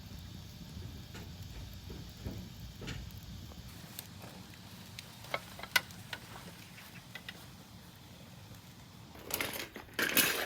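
Wood fire burning in a traditional firebox, crackling with scattered sharp pops, then a louder burst of noise near the end.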